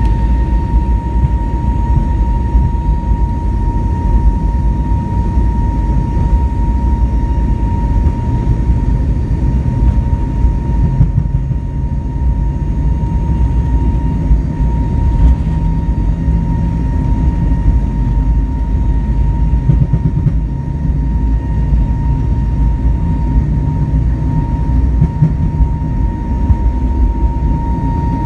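Airbus A320neo cabin sound during takeoff: the engines at high thrust give a steady whine over a heavy, continuous rumble.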